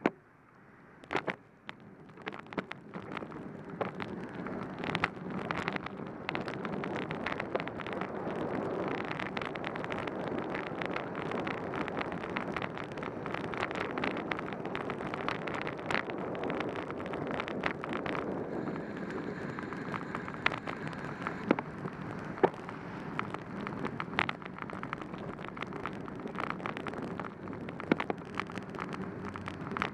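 Bicycle pulling away on a rain-soaked street, heard from a bike-mounted camera: a hiss of wet tyres and wind that builds over the first several seconds and then holds steady, with many sharp clicks and taps throughout.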